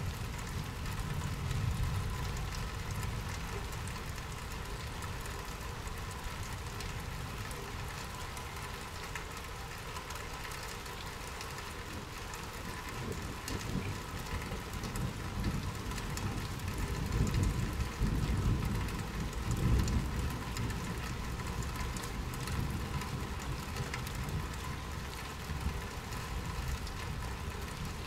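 Steady rain falling, an even hiss with no single drops standing out. About halfway through, a low rumble swells up, is loudest a few seconds later and then eases off again.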